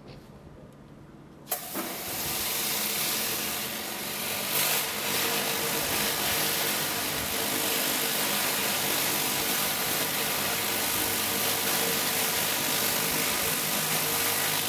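Pressure washer driving a Kärcher FR50 rotary surface cleaner over paving. A loud, steady hiss of high-pressure water jets starts suddenly about a second and a half in and keeps on, over the steady hum of the washer's motor and pump.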